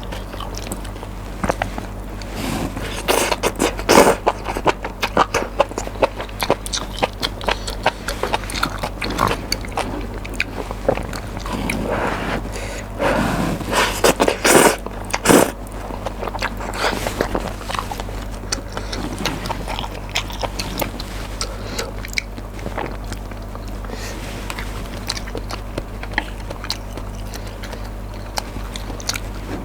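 Close-miked eating of spicy noodles: wet chewing and mouth clicks, with louder bursts of eating noise about three to five seconds in and again around twelve to sixteen seconds in. A steady low hum from the microphone runs underneath.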